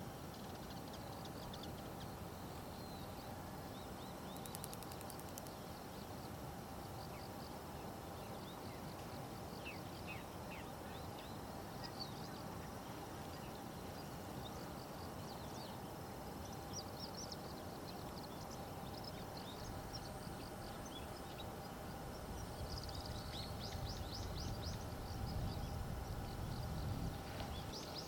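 Small birds giving short high chirps over a steady background hum. Near the end one bird sings a quick run of repeated notes while a low rumble swells.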